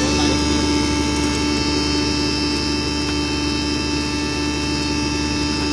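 20 HP double-chamber stoneless grinder with blower and cyclone running steadily while being fed chana dal. A constant hum and high whine over an even rush of air, with no change in speed.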